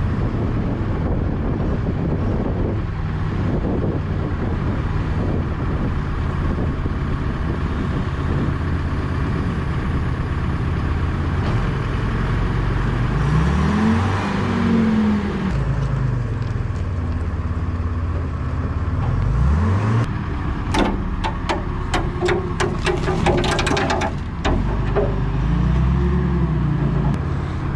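Loader engine running steadily, revving up and back down about 13 seconds in and again near 19 seconds. In the last third comes a quick run of sharp metallic clanks and knocks.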